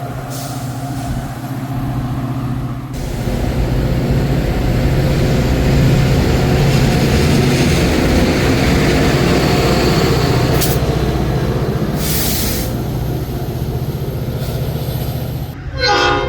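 Metra commuter train's diesel locomotive running with a steady low engine drone over the rumble of the train, with a brief hiss about twelve seconds in.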